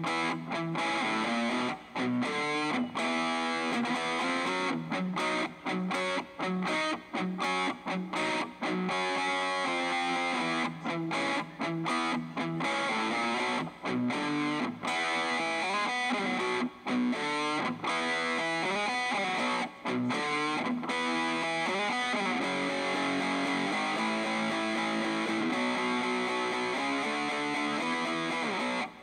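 Distorted electric guitar playing a song's riffs and chords, with many brief stops between phrases.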